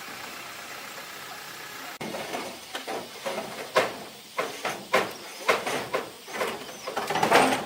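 A steady engine-like hum. About two seconds in it gives way abruptly to a run of irregular knocks and scrapes, the loudest near the end.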